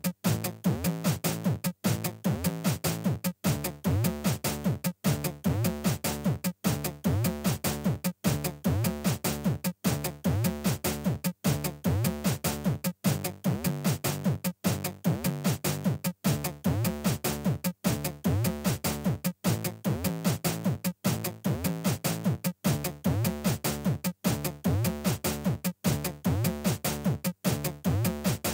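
Background electronic music from a Teenage Engineering Pocket Operator: a steady drum-machine beat with synth, in a short repeating loop.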